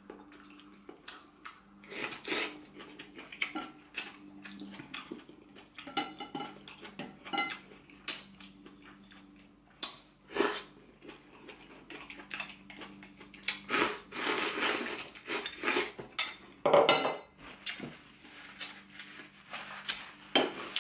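Chopsticks clicking and scraping against ceramic plates and bowls in irregular taps, with chewing and slurping of hot pot food between them.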